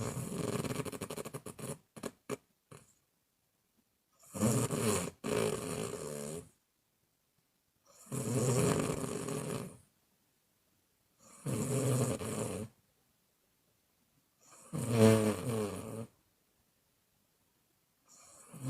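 A woman snoring in a steady rhythm, one snore about every three and a half seconds. The first snore breaks up into a quick sputter, and the one near the end is the loudest and most clearly pitched.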